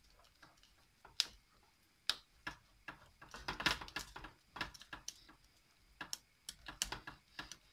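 A stirring utensil knocking and scraping against a stainless steel saucepan as thick churros dough is beaten on the heat to break up lumps. Irregular clicks, a few a second, with a busier run of knocks about halfway through.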